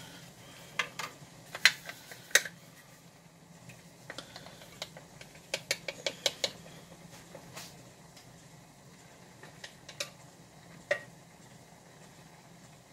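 Kitchen utensils and containers clicking and clattering as they are handled and set down on a counter: a quick run of sharp knocks at the start, a cluster around the middle, and a couple of single knocks later, over a faint steady low hum.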